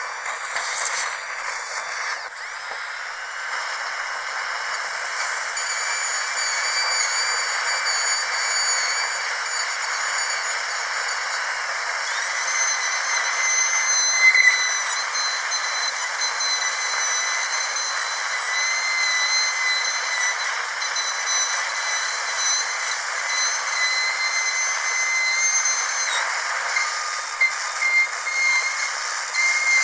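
Dentist's drill running: a steady high-pitched whine over a hiss, its pitch stepping slightly now and then, with a few brief louder spikes.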